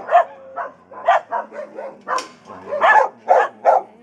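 A dog barking repeatedly, about nine short barks at roughly two a second.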